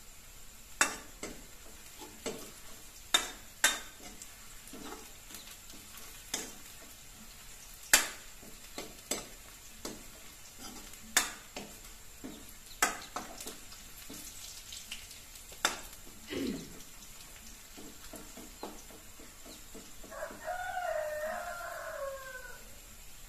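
A steel ladle stirring onions and dried red chillies frying in oil in a steel kadai, with sharp, irregular clinks of the ladle against the pan over a faint sizzle. Near the end a rooster crows once, a wavering call lasting about two seconds.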